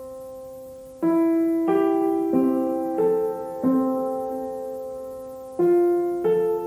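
Background piano music: gentle chords struck one after another, each ringing and fading away, with a soft note before the chords begin about a second in.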